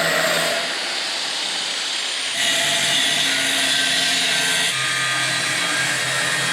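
Power tool running steadily, a cutting or grinding sound that changes abruptly in tone about half a second in, again near the middle, and once more a few seconds later.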